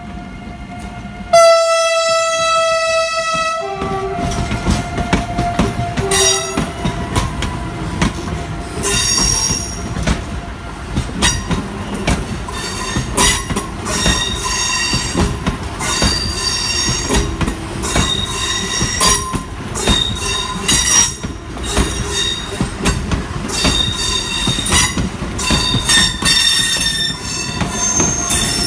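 Renfe S-130 Alvia (Talgo 250) train sounding one long horn blast about a second in, then passing close by, its wheels clicking rhythmically on the rails with intermittent high-pitched wheel squeal.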